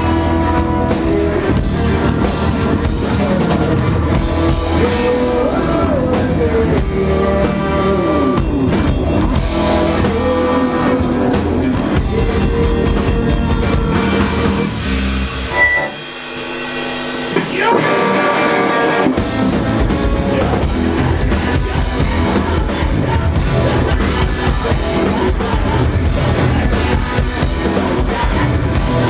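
Live rock band playing, with a drum kit and electric guitar. About halfway through, the drums and bass drop out for a short break of a few seconds, and then the full band comes back in.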